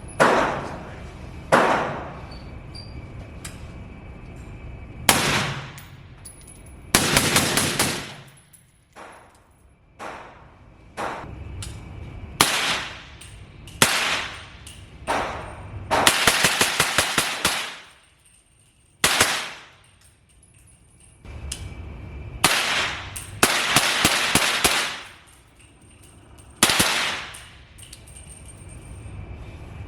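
Suppressed firearms shooting: single shots spaced a second or more apart, and several fast strings of rapid fire. Each shot is a sharp crack that dies away quickly.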